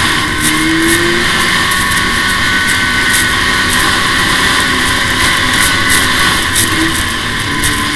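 2005 Arctic Cat F6 EFI snowmobile's two-stroke twin running under steady throttle on the move, with its pitch climbing briefly about half a second in and again near the end, over a loud hiss of air and track noise.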